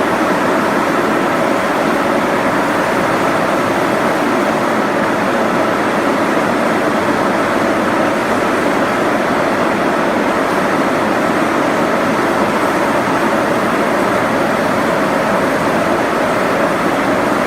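Steady machinery noise with a faint hum, even and unbroken.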